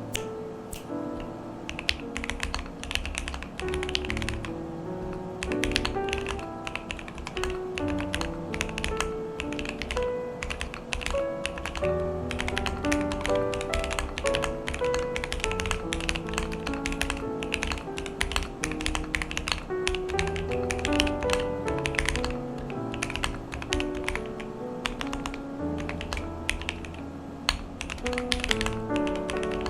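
Fast, continuous typing on a Keychron Q8 aluminium mechanical keyboard fitted with hand-lubed Gateron CJ linear switches, an irregular run of key clacks, over background music with a melody.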